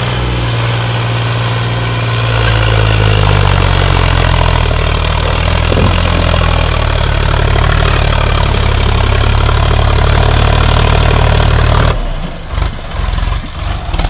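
Sonalika tractor's diesel engine working hard under load as it hauls a laden trolley up a sandy slope, heavy enough to lift the front wheel. The engine grows louder about two seconds in. Near the end the sound drops suddenly and turns uneven.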